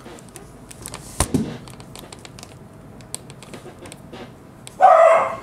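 Light clicks and rustles of a plastic action figure being handled and posed, with one sharper click about a second in. Near the end a dog gives a short loud bark.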